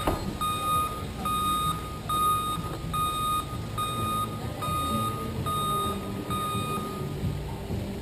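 Construction vehicle's reversing alarm: a steady high beep repeating a little faster than once a second, about eight times, stopping near the end, over a low rumble. A sharp click right at the start.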